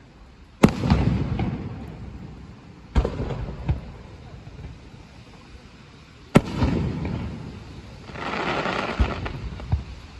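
Aerial firework shells bursting: three sharp booms about a second, three and six seconds in, each rolling off in an echoing rumble. Near the end comes a hiss of about a second and a half with a few small pops.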